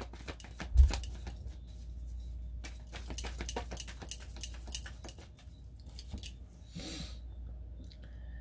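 Tarot cards being shuffled and handled: a run of quick clicks and taps, with a dull thump about a second in.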